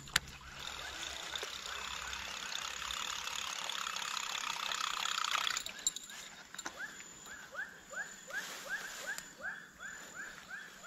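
Wild animal calls: a dense buzzing chorus that grows louder for about five seconds and cuts off suddenly, then a short rising chirp repeated about three times a second.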